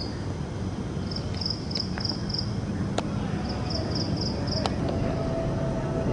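High chirping in short runs of four or five quick pulses, repeating every second or two, like a cricket or similar insect, over a steady low rumble, with a few faint clicks.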